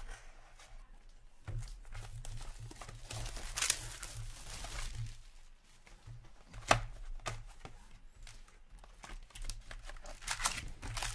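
Plastic wrap being slit and torn off a hockey card box, crinkling and tearing, then the cardboard box opened and its foil packs handled, with a few sharp clicks.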